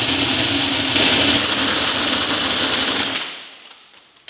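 Compressed air blasting out of a homemade 4000 PSI BB gun in a loud, steady hiss that fades away about three seconds in.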